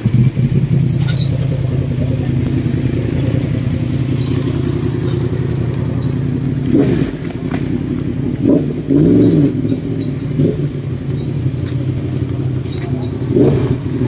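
Several motorcycles idling close by, their engines running steadily, with a few short revs that rise and fall in pitch in the second half.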